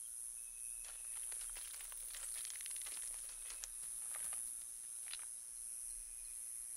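Quiet forest-floor ambience: a steady high-pitched insect drone, with a run of dry crackles and clicks between about one and five seconds in.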